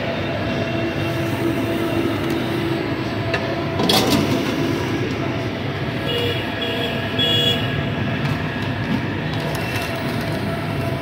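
Steady mechanical drone and hiss of a busy street-food kitchen, with a single sharp clatter about four seconds in.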